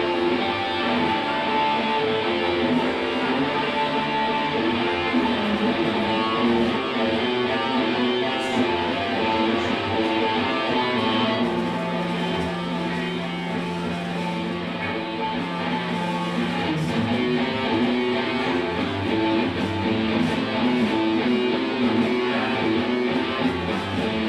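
Live band playing, led by an electric guitar. About halfway through, a low note is held for several seconds.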